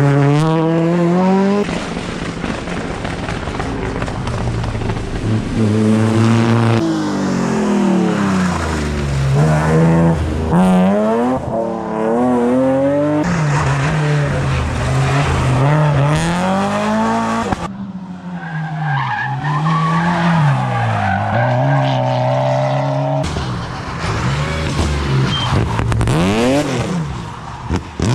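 Rally cars driven flat out, engines revving hard and dropping back again and again through gear changes, with tyre squeal as the cars slide.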